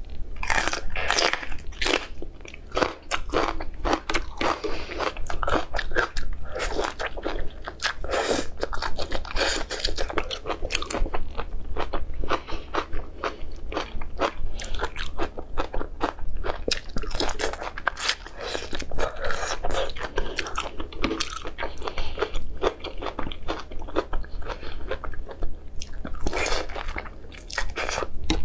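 Close-up mouth sounds of a person biting and chewing tomato and whole shrimp topped with green fish roe: dense, irregular crunching and crackling throughout, over a steady low hum.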